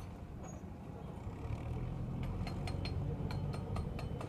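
Backhoe loader's diesel engine running steadily while it loads a steel dump-truck body. A run of sharp metallic clinks and knocks starts about halfway through, from the bucket and spoil meeting the tipper bed.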